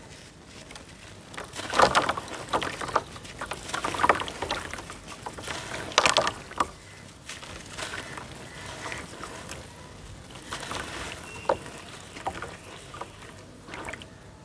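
Hands dunking and crumbling a handmade charcoal-and-sand ball in a tub of water: splashing and sloshing, with the biggest splashes about two, four and six seconds in, then softer swirling of the water.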